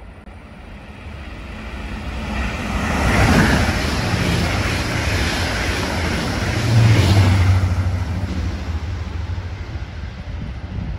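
Electric multiple unit passing close along a station platform: a rising rush of wheels on rail, loudest a few seconds in, with a low steady hum from the running gear as the cars go by, then fading away.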